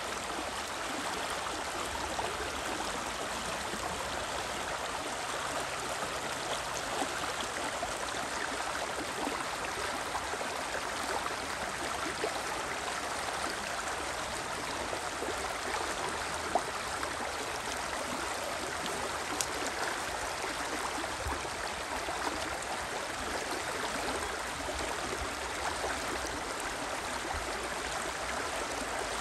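The Spree river rushing: a steady, even flow of water noise, with a few brief ticks.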